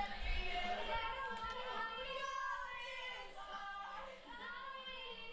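Voices from home-video footage recorded on a Mini DV camcorder and played back: several women singing and talking together.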